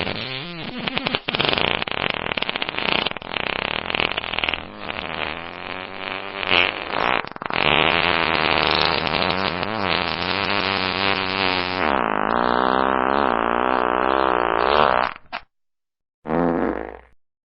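Fart meme sound effects played back to back: a run of raspy farts whose pitch wobbles up and down, then one long drawn-out fart of about seven seconds that cuts off. After a moment of silence comes one short fart near the end.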